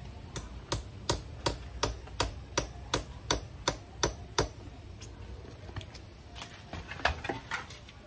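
Hammer blows, a dozen sharp strikes at about three a second, then a few lighter, uneven taps near the end.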